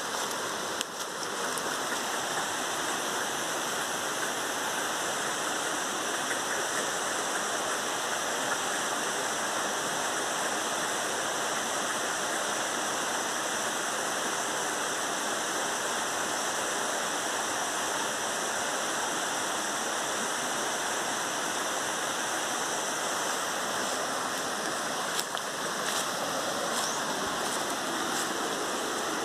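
Steady rushing noise like running water, with a couple of faint clicks, one about a second in and one near the end.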